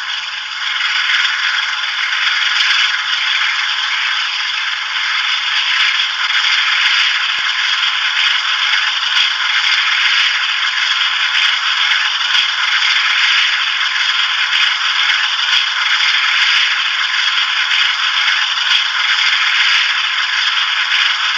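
Sound decoder of a DCC-fitted Bachmann Class 45 'Peak' model locomotive playing its diesel engine sound through a small onboard speaker, thin and hissy, while the model stands still. The sound steps up slightly about a second in and then runs steadily.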